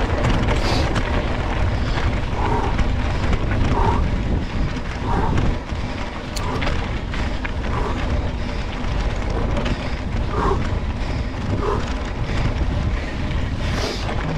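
Wind buffeting the microphone of a camera on a mountain-bike ride, a steady low rumble with short faint tones recurring about once a second.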